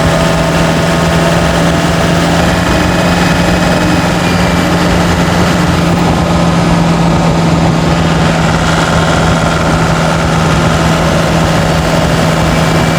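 Turbodiesel pickup engine running at a steady speed while driving, heard from inside the cab as an even low drone over road noise.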